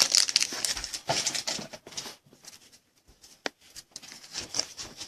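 Rustling of a just-opened foil trading-card pack as the cards are pulled out and handled. It comes in short irregular bursts, with a few sharp clicks about three and a half seconds in.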